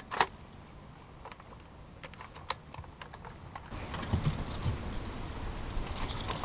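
Scattered light clicks and taps of handling in a brush duck blind. A little past halfway a louder rustling and wind noise sets in, with a couple of soft thumps.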